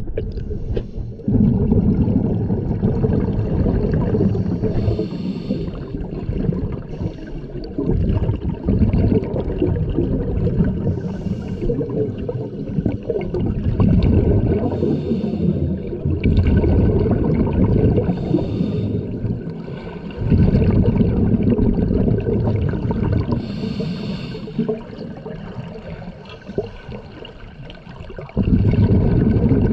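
Scuba diver's regulator breathing heard underwater through a camera housing: exhaled bubbles rumbling and gurgling in long stretches, with a short hiss of inhalation through the regulator every four to six seconds.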